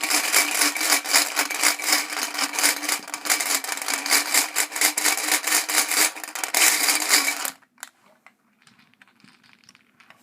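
B-daman marbles clattering against one another and the hard plastic toy in a dense, continuous rattle, then stopping abruptly about seven and a half seconds in; only a few faint ticks follow.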